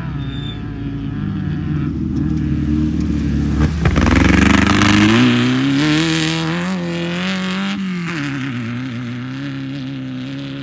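Off-road race vehicle's engine revving. Its pitch climbs after a sharp knock about four seconds in, holds, then drops back about two-thirds of the way through.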